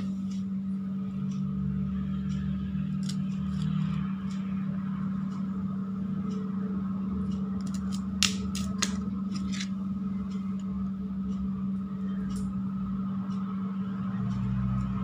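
Knife cutting through a soft block of maida burfi and clicking against a steel plate, with a couple of sharper clicks about eight seconds in, over a steady low hum.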